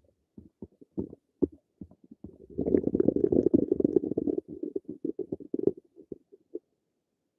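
A person's stomach gurgling: scattered short pops that build about two and a half seconds in to a long, loud bubbling rumble, which thins back out into a few pops and then stops.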